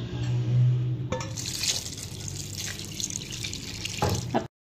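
A mug of water poured into a cooking pot onto chicken and soaked lentils. The splashing pour starts about a second in and cuts off suddenly near the end.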